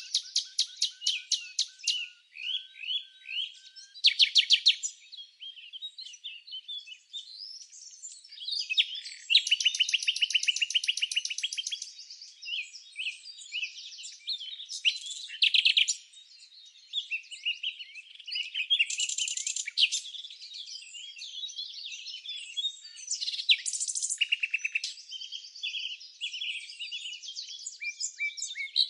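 Songbirds chirping and singing, several voices overlapping: short high chirps mixed with rapid, evenly repeated trills that come in loud runs every few seconds.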